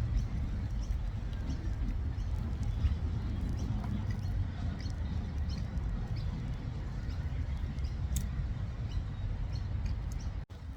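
Outdoor background noise: a steady low rumble with faint, scattered high chirps and ticks, and a brief dropout near the end.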